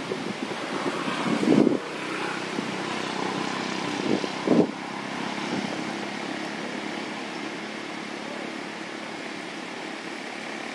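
Outdoor ambience with a steady distant engine drone, and two brief louder noises in the first half.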